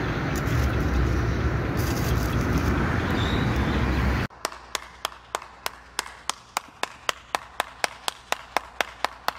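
A steady low rumble for about four seconds, then an abrupt cut to a quieter stretch of sharp, evenly spaced clicks, about three or four a second.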